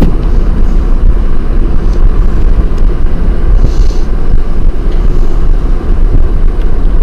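Car driving along a road, heard from inside the cabin: a loud, steady low rumble of engine and tyres.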